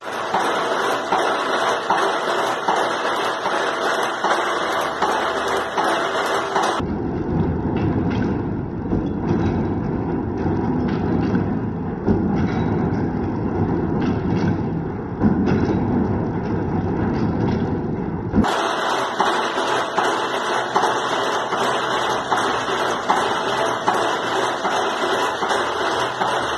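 Metal-working shaper machine running, a continuous clattering machine noise with many small ticks. About seven seconds in it cuts abruptly to a duller, lower-pitched version of the noise, and about eighteen seconds in it cuts back to the brighter one.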